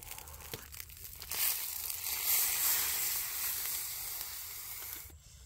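Soft crinkling as a marinated whole chicken is handled, then about a second in a loud sizzling starts suddenly as it fries in hot oil in a wok. The sizzle fades slowly and cuts off near the end.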